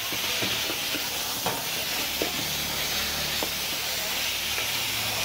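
Marinated goat meat and lemongrass sizzling in hot oil in a steel wok, stir-fried with a metal ladle that clicks and scrapes against the pan. This is the searing stage, where the meat is seared until it firms up.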